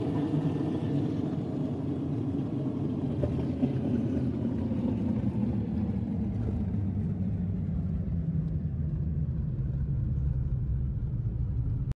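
Car driving along a road, heard from inside the cabin: a steady low rumble of road and engine noise. The higher hiss fades about halfway through, leaving a duller rumble.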